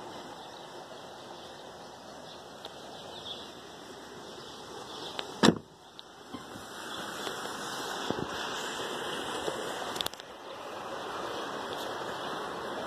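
A car door shutting with one heavy thud about five and a half seconds in, over a steady rushing noise that grows louder after it.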